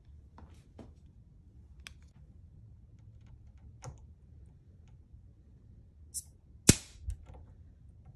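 Scattered small clicks and taps of small metal shock-damper parts being handled and fitted onto the damper shaft held in a bench vise. One sharp, much louder click comes about two-thirds of the way through.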